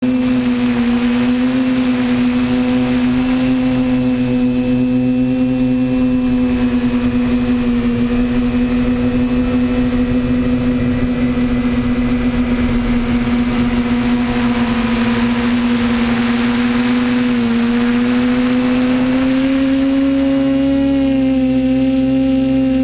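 Quadcopter drone's electric motors and propellers giving a loud, steady hum with a thin high whine above it. The pitch dips slightly about 17 seconds in and rises a little near the end.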